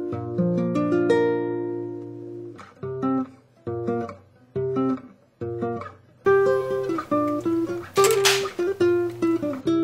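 Background music of plucked acoustic guitar: a ringing chord, then short single plucked notes that grow busier after about six seconds. A brief hissing swish comes about eight seconds in.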